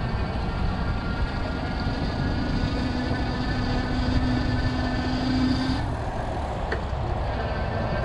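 Steady rumble of e-bike riding on an asphalt trail, with wind on the microphone and highway traffic from the nearby interstate. A steady hum holds for a few seconds and cuts off about six seconds in.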